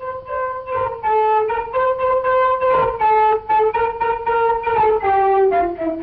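Early-1930s cartoon soundtrack music: woodwinds playing a melody of short, quickly changing notes.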